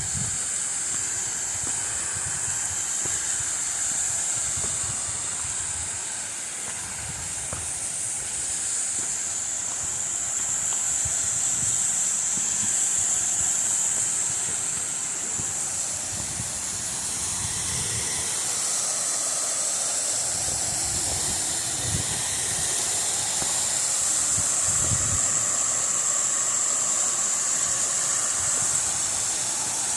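Waterfall rushing as a steady, hissing roar of falling water. Now and then there are short low rumbles of wind on the microphone.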